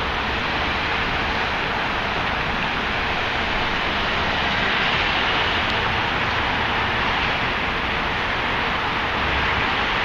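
Steady noise of city street traffic, swelling a little about halfway through.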